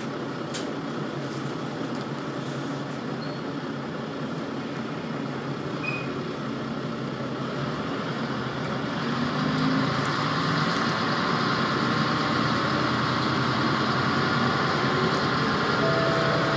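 Diesel railcar's engine heard from inside the cabin, running steadily while the train stands at the station, then revving up about nine seconds in as the train pulls away, the hum growing louder and rising in pitch.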